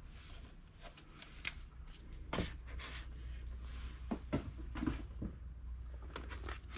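Paperback manga volumes being handled and set on an IKEA Billy bookshelf: a few soft, scattered taps and knocks, most of them in the second half, over a faint low hum.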